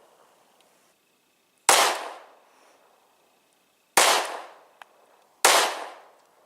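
Three shots from a SCCY CPX-2 9mm pistol, fired a couple of seconds apart, the last two closer together; each sharp report trails off over about a second of echo.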